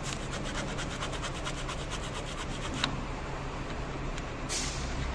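Rapid scraping of a hand tool against the cut edge of a foam-core steel sandwich panel, about ten strokes a second for nearly three seconds, clearing the foam to bare the inner steel sheet. A sharp click follows, then one longer scrape.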